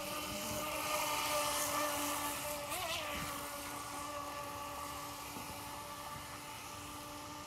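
Boat motor running at a steady pitch, with a brief wobble in pitch about three seconds in.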